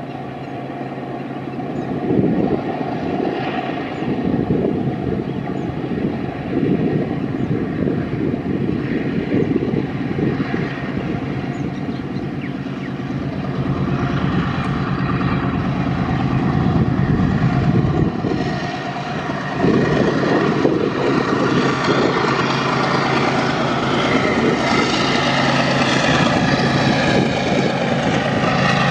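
Two diesel locomotives hauling a double-stack container train as it approaches, their engines giving a steady, throbbing drone. The sound grows louder, and from about halfway on a rising hiss and rumble of wheels on rail joins it.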